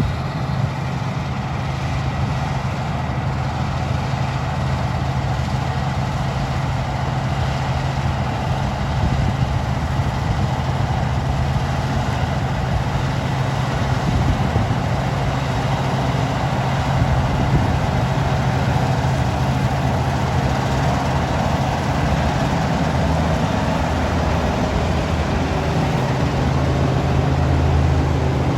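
Claas Dominator 98SL Maxi combine harvester running steadily at work harvesting wheat: a low, even engine drone under a dense, constant rush of machine noise.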